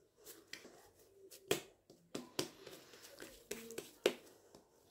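Risen pizza dough being pulled from a glass bowl and patted into a ball between oiled hands: a few separate soft slaps and sticky smacks, the loudest about a second and a half in.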